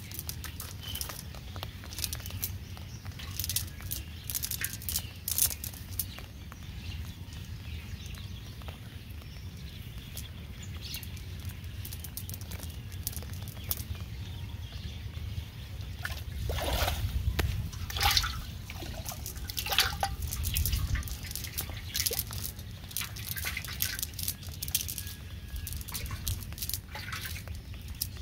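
Water dripping and trickling from a wet cast net, with scattered short crackling rustles as the net and grass are handled to pick out fish; the rustling gets denser and louder about two-thirds of the way through.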